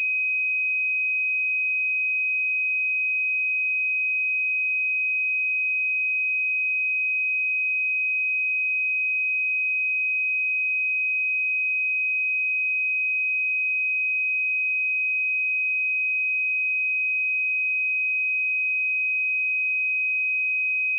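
A steady, unbroken pure sine tone at 2521 Hz, a single high-pitched note held at constant loudness, used as a speaker and headphone test signal.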